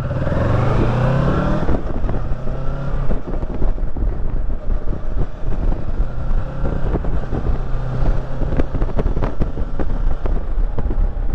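Kawasaki Versys 650 parallel-twin engine rising in pitch as the motorcycle accelerates away for the first couple of seconds, then running steadily at road speed. Wind buffets the microphone with constant crackling.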